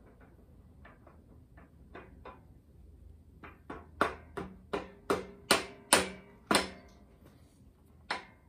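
Hammer tapping a metal part on a Porsche 911 engine's camshaft sprocket to seat it flush: light taps at first, then from about four seconds in around eight harder, ringing strikes about two a second, and one last tap near the end.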